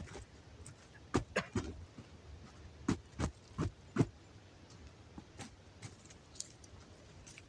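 A series of short, sharp knocks and crunches at irregular spacing, bunched in the first half, with a few fainter ones later.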